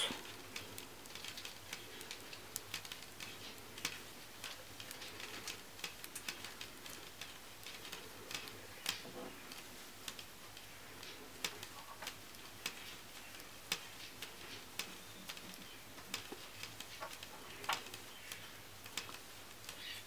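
Metal knitting needles ticking and clicking as rib stitches are worked, knits knitted and purls purled. The clicks are faint and come irregularly, a few a second.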